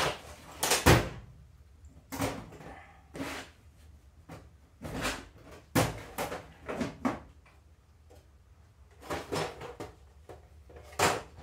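Hand tools and RC truck parts being handled: irregular clicks, knocks and short scrapes, with the sharpest knocks at the start and about a second in.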